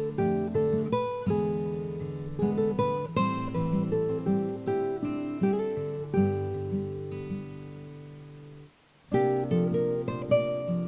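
Background music: a solo acoustic guitar picking a gentle melody, with a brief pause about nine seconds in.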